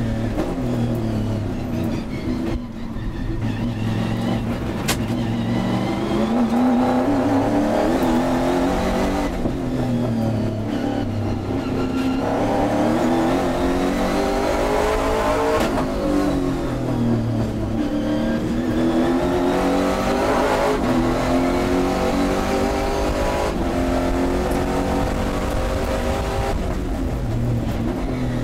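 Touring race car's engine heard onboard at high revs, its pitch climbing under full throttle and dropping back at each gear change. About halfway through it eases and falls in pitch as the car slows for a corner, then pulls hard again.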